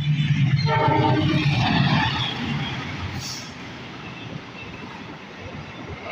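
Diesel-electric locomotive passing close by, its engine hum loudest in the first two seconds. Passenger carriages follow with a steady rolling wheel-on-rail noise and a brief sharp click about three seconds in.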